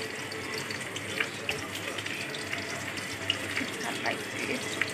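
A chef's knife and hands working a head of napa cabbage on a wooden cutting board: a few light knife taps and leaf handling over a steady rushing noise.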